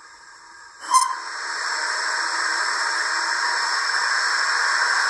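Recorded steam hiss from a Zimo sound decoder in an OO gauge Hornby D16/3 model locomotive, played through the model's small speaker. It starts suddenly about a second in and then holds as a long, steady hiss.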